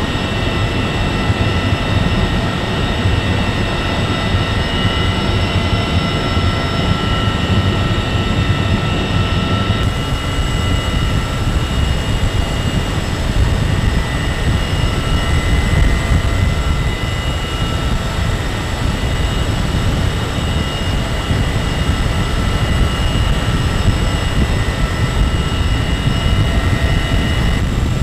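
Loud, steady in-flight noise of a CH-53E Super Stallion helicopter heard from inside: a deep rumble of engines and rotor with several steady high whines over it, shifting slightly about ten seconds in.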